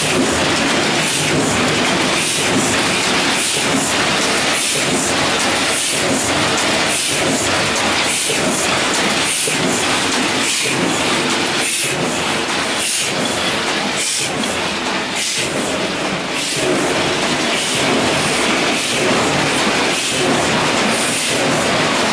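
Heidelberg SBG 56 x 77 cylinder letterpress running. A steady mechanical clatter repeats about every three-quarters of a second with each cycle of the press.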